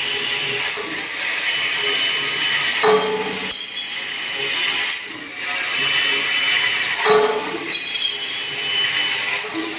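Laser tube-cutting machine running: a loud, steady hiss with a few faint whining tones, and a pattern that repeats about every four seconds, as the cutting cycle goes round.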